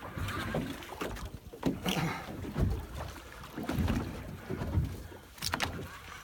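Wind buffeting the microphone and water moving against the hull of a small fishing boat drifting with no engine tone, with a couple of sharp knocks about five and a half seconds in.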